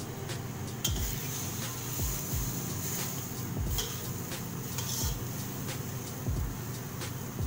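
Metal spatula scraping and stirring shredded radish around a steel wok, with a few sharp clinks of metal on metal.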